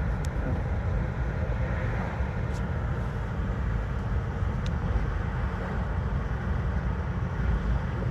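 Steady low rumble of a car heard from inside the cabin, engine and road noise with no sharp changes.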